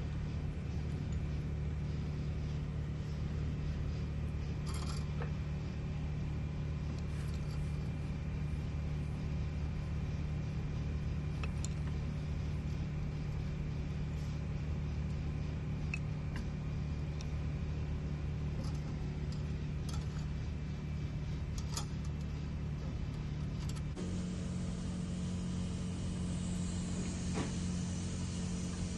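A handful of light metallic clinks and taps as a fuel injection valve and its pipe fitting are handled and fitted into a testing stand, over a steady low machinery hum that shifts in pitch about three-quarters of the way through.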